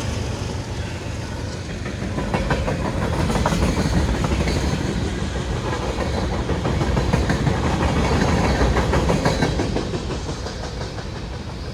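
Freight cars of a long CSX freight train rolling past, a steady rumble of steel wheels on rail with scattered clicks as the wheels cross rail joints.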